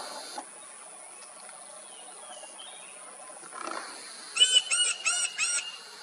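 Rufous woodpecker calling: a quick run of about five loud, evenly spaced notes, starting a little past the middle.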